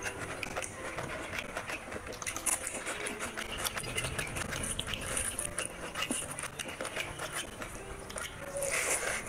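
Close-miked eating sounds: wet, clicky chewing and lip-smacking, with fingers squishing rice and chicken curry gravy on the plate. The sound is louder near the end, as a handful of rice goes to the mouth.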